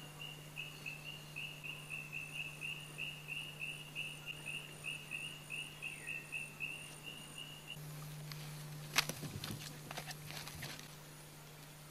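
Rainforest ambience: a high chirp repeated about three times a second from a calling insect or bird, with a fainter, higher insect trill. Both stop about eight seconds in. A few sharp clicks and knocks follow about a second later.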